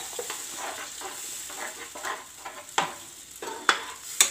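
Slotted spatula stirring and scraping a sizzling onion-tomato masala in a nonstick kadai, the masala frying in oil under a steady hiss. The spatula knocks sharply against the pan three times in the second half.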